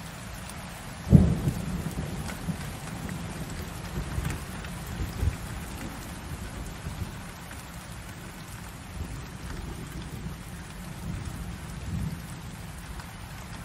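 Light rain falling steadily, with a sharp thunderclap about a second in that rumbles away over a few seconds, and further low rumbles of thunder after it.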